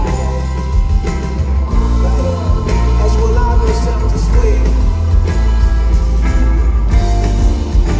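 Live soul-rock band playing loudly, with a heavy bass and drums and a singer's voice over the band.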